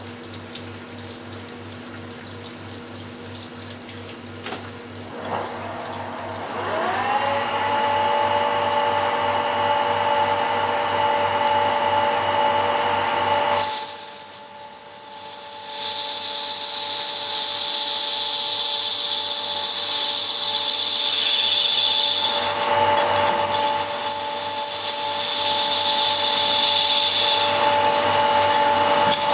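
CNC lathe parting off a stainless steel part with a parting tool under flood coolant: coolant splashing, a rising whine about six seconds in that levels off into a steady tone, then from about halfway a louder, high-pitched ringing as the tool cuts deeper into the stainless.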